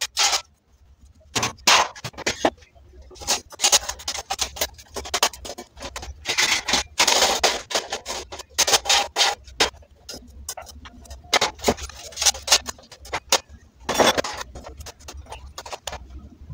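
Metal stove parts being handled and set into a steel frame: irregular clanks, knocks and short rattles as the burner trays and pan-support grates of a two-burner gas stove are fitted into place.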